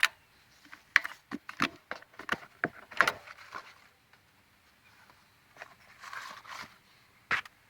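Irregular sharp clicks and knocks, many in the first three and a half seconds, then a short rustling stretch about six seconds in and one more loud click near the end.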